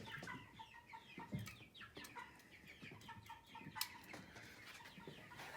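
Faint bird calls, short chirping or clucking notes that repeat and fall in pitch, with a few light knocks among them.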